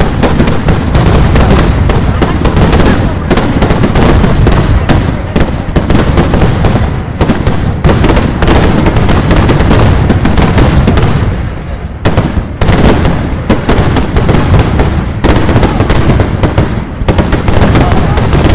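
Vedikettu fireworks barrage: a dense, continuous run of loud explosions going off in rapid succession, with a brief lull a little past the middle.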